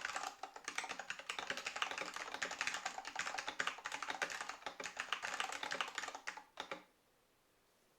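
Fast typing on a Matias Mini Tactile Pro keyboard with Alps SKCM Brown tactile switches, a dense run of key clicks that stops with a last couple of strokes near the end.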